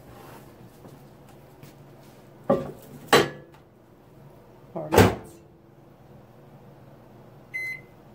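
Oster countertop microwave being loaded and shut: two knocks about two and a half and three seconds in, then a louder bang as the door is closed about five seconds in, and a single short keypad beep near the end.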